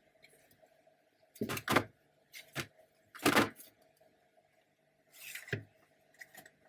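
Cheese packages being set into a plastic fridge tray: a few short knocks, then a brief sliding scrape about five seconds in.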